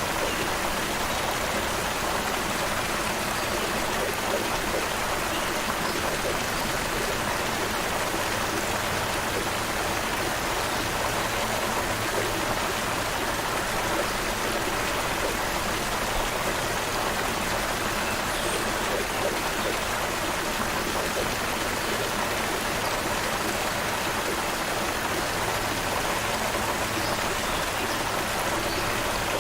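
A small stream flowing in a steady, even rush of babbling water.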